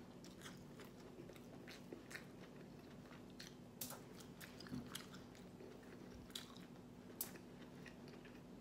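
A person eating with her fingers: faint chewing and lip-smacking, with scattered short, irregular clicks and smacks of the mouth.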